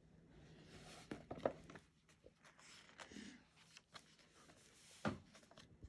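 Pages of a hardcover picture book being turned and handled: a soft rustling and swishing of paper, with a few light knocks and one sharper knock near the end.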